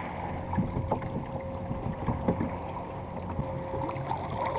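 Small plastic dinghy under way on a Watersnake 54 lb-thrust electric trolling motor: a steady faint motor whine and hum, with small waves slapping and splashing irregularly against the hull as it pushes into a headwind chop.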